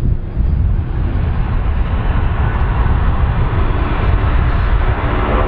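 Twin-engine jet airliner's engines running: a steady low rumble, with a whine of steady tones coming in near the end.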